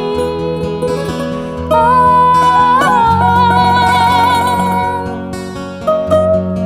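Live acoustic music: bouzouki and acoustic guitar playing plucked melody and chords. A long held note with vibrato comes in about two seconds in and fades about two and a half seconds later.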